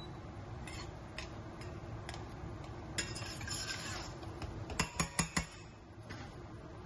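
A metal spoon stirring thick onion and tomato sauce in a stainless steel saucepan. A short run of scraping comes about three seconds in, and a few sharp clinks of the spoon against the pan about five seconds in.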